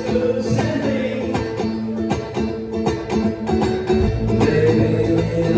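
Live band music with banjo picking over guitar and drums, and a deep bass part coming in about four seconds in.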